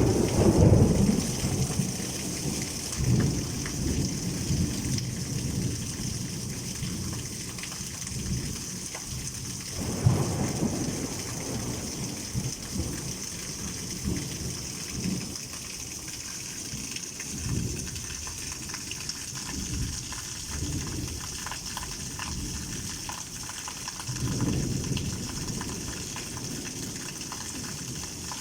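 Heavy rain falling steadily as a constant hiss, with thunder rolling three times: a loud rumble right at the start, another about ten seconds in, and a softer one near the end.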